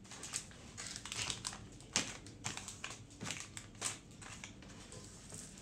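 Rustling and crinkling of cardboard packaging being handled, with irregular light clicks and taps as small ink-cartridge boxes are set down on a desk; the sharpest taps come about two and four seconds in.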